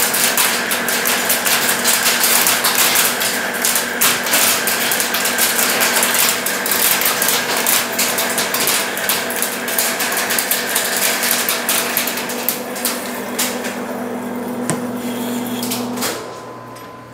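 Large engine lathe boring out a sprocket bore with a boring bar, a dense crackle from the cut over a steady geared-drive hum. This is a rough boring pass toward a shrink-fit size. About sixteen seconds in, the cut and the spindle stop, leaving a fainter steady hum.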